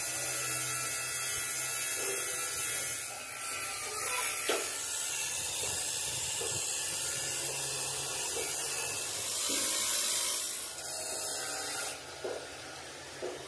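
Gravity-feed compressed-air spray gun hissing as it sprays paint onto a tractor front axle and wheel hub, with a brief let-off of the trigger about three seconds in and stopping about a second before the end.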